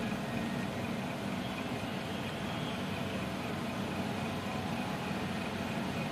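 A steady low mechanical hum with an even hiss over it, unchanging in level.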